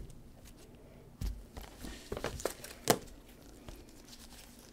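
Trading cards being handled and set down on a table: light rustling with a few short sharp taps, the sharpest about three seconds in.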